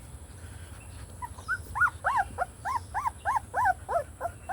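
A three-week-old American pit bull terrier puppy whining: a run of short, high cries that each rise and fall, about three a second, starting about a second in.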